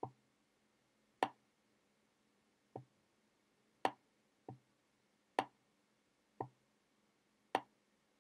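Computer mouse button clicking faintly four times in press-and-release pairs, each press held about a second while dragging before its release. The releases are sharper and louder than the presses.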